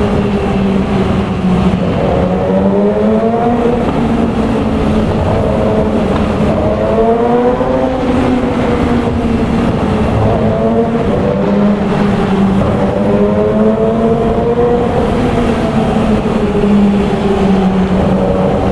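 Yamaha R6's inline-four engine running through an aftermarket full-system exhaust under way, its steady note slowly rising and falling in pitch a few times as the throttle and speed change.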